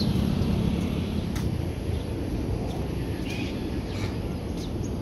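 Steady low outdoor rumble, heaviest in the first second or so, with a few short high bird chirps and faint clicks.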